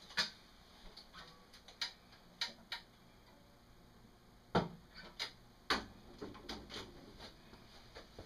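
Irregular clicks and knocks as an acoustic guitar is lifted and set down on a guitar stand after playing, the loudest knock about four and a half seconds in, followed by a few softer taps.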